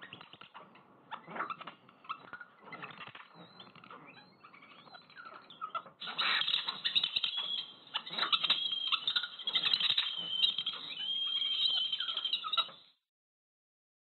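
Birdsong heard through a simulated hearing aid. For the first six seconds the chirps are quiet and dull, with SoundRecover switched off. About six seconds in, SoundRecover frequency compression switches on and the song becomes much louder and clearer, with chirping glides high in the range. It cuts off about a second before the end.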